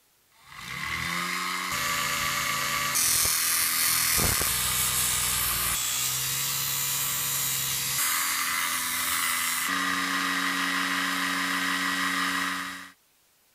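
Small DC motor belt-driving an abrasive disc, whining as it spins up and then running steadily, with metal ground against the disc making a harsh hiss. The sound changes abruptly several times, as short clips follow one another, and cuts off suddenly near the end.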